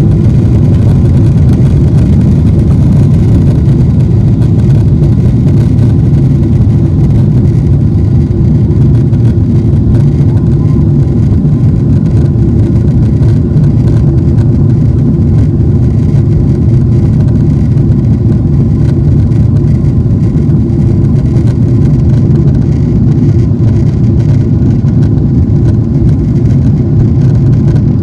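Cabin noise of a Boeing 777-300ER's GE90-115B engines at takeoff thrust as the airliner lifts off and climbs out, a loud, steady, deep rumble heard from inside the cabin.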